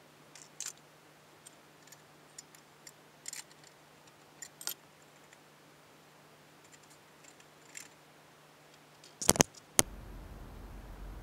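Light, scattered clicks and taps of small metal engine parts being handled, with two or three sharp louder knocks about nine and a half seconds in.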